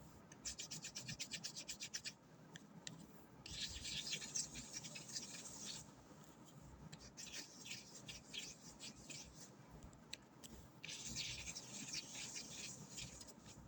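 ASMR scratching and rubbing triggers: fast, crisp scratching strokes in bursts of a few seconds, with short pauses about two seconds in and again near the end.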